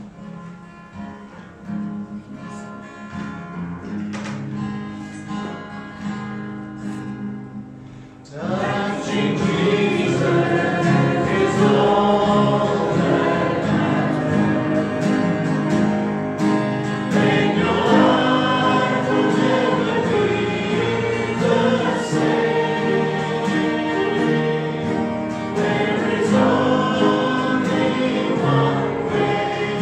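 Instrumental introduction to a gospel hymn, then the congregation comes in singing loudly about eight seconds in, with the accompaniment carrying on underneath.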